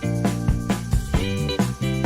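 Upbeat background music with a steady drum beat and plucked guitar-like notes.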